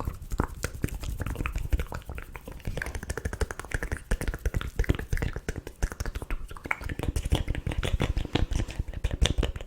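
Close-miked ASMR mouth sounds: a rapid, continuous stream of wet tongue clicks and lip smacks, many per second.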